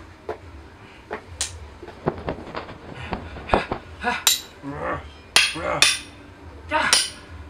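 Foley sounds for a spear-and-sword fight: a run of sharp knocks and clanks from struck props, the last few louder with a bright metallic ring.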